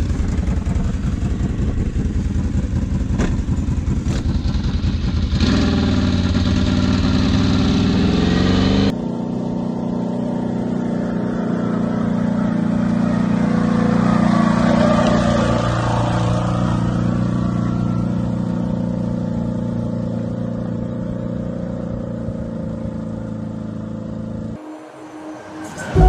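CFMoto X8 ATV's V-twin engine running as the quad sets off and rides, revving up about six seconds in. The sound changes abruptly about nine seconds in to a steadier engine drone, which drops away near the end.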